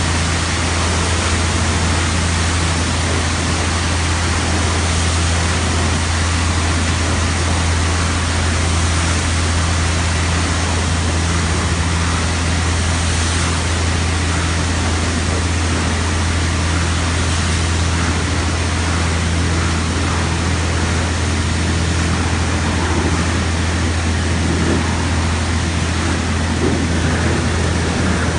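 Automatic car wash machine running over the car: a loud, steady rushing noise with a low, even hum underneath.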